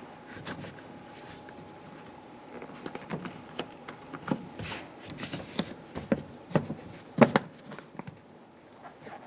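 Scattered light clicks, taps and handling noises as parts are worked on an open truck door, with a sharper knock about seven seconds in.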